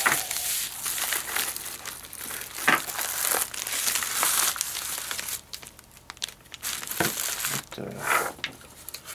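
White packing paper and plastic coin sleeves crinkling as they are unwrapped by hand. The crinkling is dense for about the first five seconds, then turns to softer, scattered rustles and light clicks.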